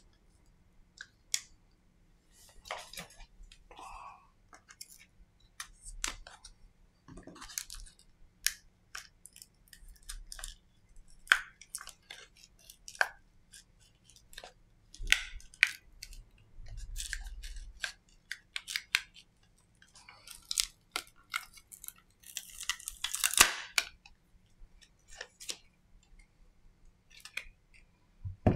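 Small clicks, taps and scrapes of hands and a plastic pry tool working a Samsung Galaxy M20's battery loose from its frame. A longer, louder stretch of tearing about three-quarters of the way through is the battery coming away from its adhesive.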